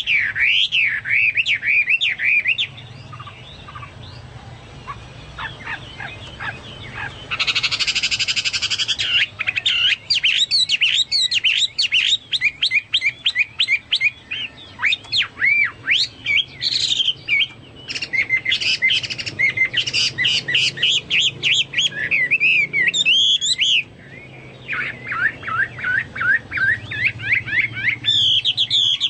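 Chinese hwamei (hoa mi) in full song, a long run of rapid, varied whistled phrases in the style of cucak Papua or cucak mas. The song eases to a quieter passage early on, breaks into a harsh buzzy burst about eight seconds in, then runs on loud and fast with a brief pause near the end.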